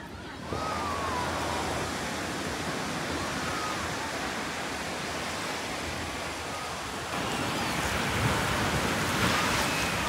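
Sea surf washing on a sandy beach, a steady rush of waves with faint distant voices; it grows a little louder about seven seconds in.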